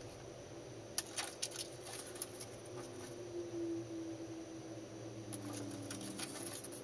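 Hobby knife blade cutting along the edge of a thin vacuum-formed plastic wrap: scratchy ticks and crackles in two spells, about a second in and again near the end.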